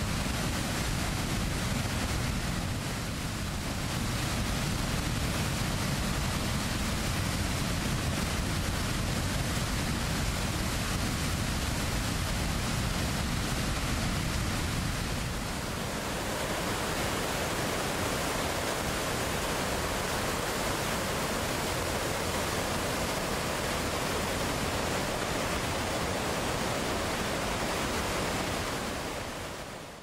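Flooded waterfall, muddy water pouring over the falls in a steady, deep rushing. About halfway through it gives way to the brighter, hissier rush of a flooded stream tumbling over rocks, which fades out at the very end.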